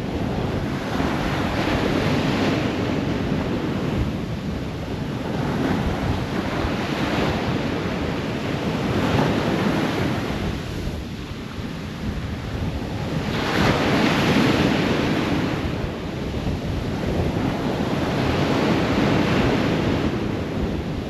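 Ocean waves breaking on a shore. The surf swells and eases every few seconds, with the biggest wave about two-thirds of the way through.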